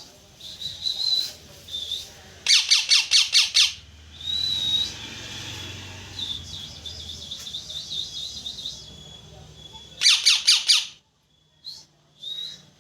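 Parrot chirping: short whistled notes and a fast trill, broken twice by bursts of rapid, loud repeated chirps, the second burst near the end.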